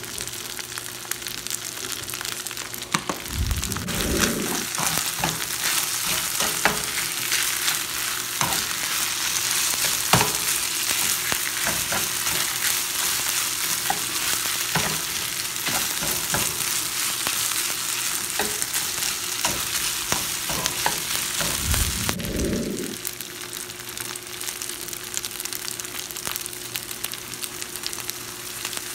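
Rice sizzling as it fries in a nonstick pan, with a metal spoon scraping and clicking against the pan as it is stirred.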